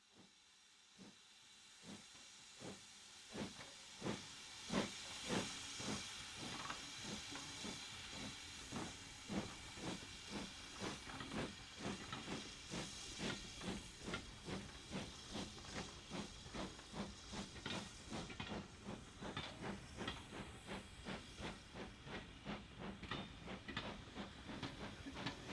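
A BR Standard tank steam locomotive pulling its coaches away: steady steam hiss with a run of rhythmic beats from the engine and the wheels on the rail that come quicker and quicker as the train gathers speed.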